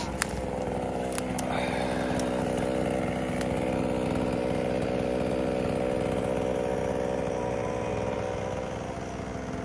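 Two-stroke chainsaw engine running at a steady, unchanging speed, with a few sharp clicks in the first two seconds.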